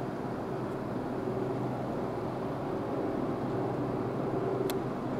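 Steady low engine rumble with a faint hum, and a single sharp click about four and a half seconds in.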